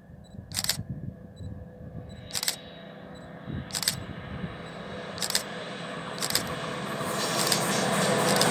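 Two class 218 diesel-hydraulic locomotives approaching with a freight train: a low engine hum that grows steadily, swelling into a rising rush of engine and wheel noise near the end. Five sharp clicks sound over the first six seconds.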